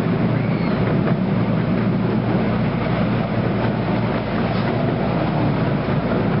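Miniature ride-on train running along its track: a steady rumble of wheels on rails, heard from an open passenger car.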